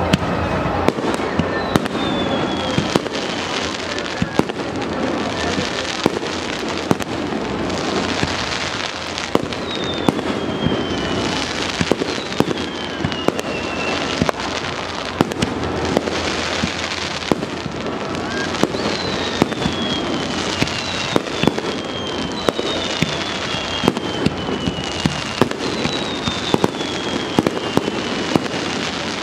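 Fireworks display: a dense, continuous run of shell bursts and crackling bangs, with several falling whistles through it.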